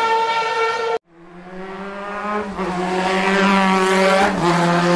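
MotoGP racing motorcycle engine: a high, steady engine note cuts off abruptly about a second in, and a lower steady engine note builds up in its place.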